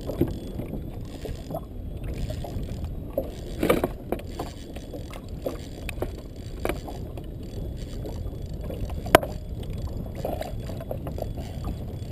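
Handling noises on a fishing kayak: scattered knocks and clicks on the hull over a steady low rumble, with one sharp click about nine seconds in.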